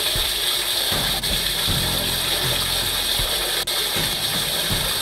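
Seawater gushing into a yacht's cabin through damage in the hull, a steady rushing hiss.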